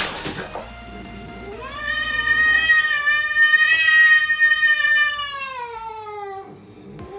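A cat meowing: one long, drawn-out meow of about five seconds that holds its pitch and then falls at the end, with the start of another meow near the end.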